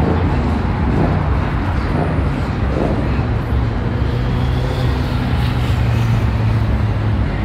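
Road traffic on a busy city boulevard: cars passing, with a steady low rumble of engines and tyres.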